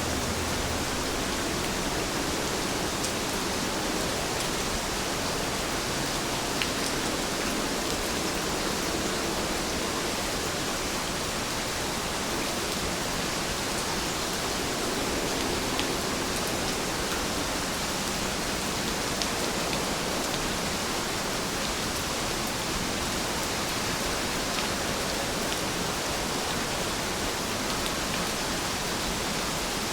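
Steady rain falling, a dense even hiss with scattered faint drop ticks.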